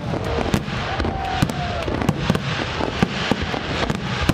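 Fireworks going off: a dense run of sharp cracks and pops, with a brief whistle about a second in.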